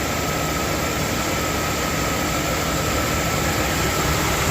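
1998 Chevy Venture's engine idling with its electric radiator cooling fans running on high, a steady rush of air with a faint constant whine. The fans are on high because the engine has reached full operating temperature and the thermostat is taken to be fully open.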